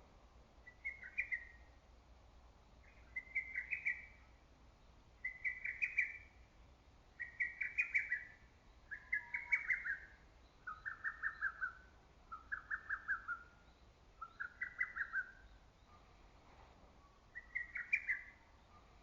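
Lesser cuckoo singing its loud staccato song over and over, a short quick run of sharp notes about every two seconds. Several phrases in the middle are pitched a little lower, and there is a short pause before the last one.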